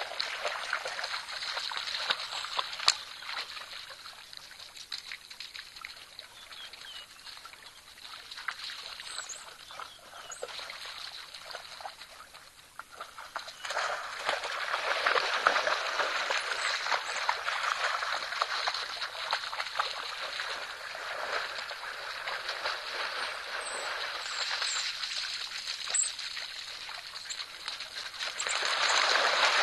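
Water splashing and sloshing as an impala swims through a waterhole with African wild dogs wading around it. It is quieter in the first half and grows louder about halfway through, swelling again near the end.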